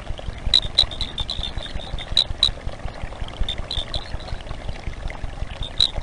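De Villiers' moss frog (Arthroleptella villiersi) calls: short, high-pitched chirps repeated at irregular intervals, some in quick pairs, over a steady low noise.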